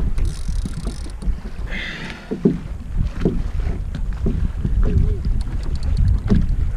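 Wind buffeting the microphone and choppy sea water against a kayak hull, a constant low rumble, with a couple of short hisses early on and scattered short clicks in the second half.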